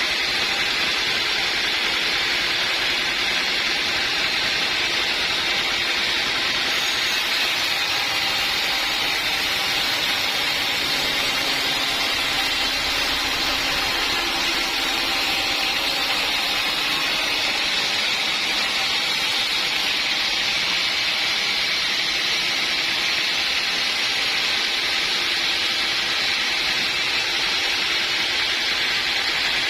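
A sawmill running and cutting wood: a steady, even hiss of the saw through the log, with a low engine hum underneath that holds constant throughout.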